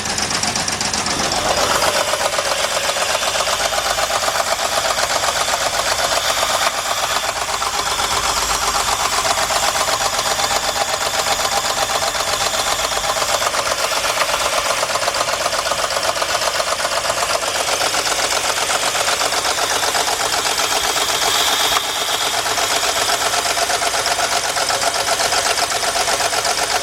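2003 Jeep Liberty's 3.7-litre V6 running with a steady, rapid metallic knocking. The mechanic takes it for a damaged connecting rod, with a piston coming up and hitting a valve.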